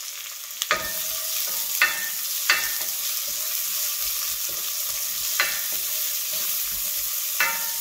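Sliced red onions sizzling in hot oil with ginger, garlic and green chilli, stirred with a wooden spoon. The spoon knocks against the coated pot about five times over the steady sizzle.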